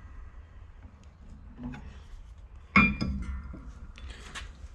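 Background music, with one sharp metallic clink that rings briefly about three seconds in.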